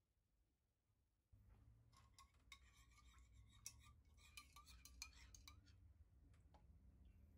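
Faint, quick clinks and light scrapes of a small metal spoon against an enamel pan as a dressing is stirred, over a low hum that comes in about a second in.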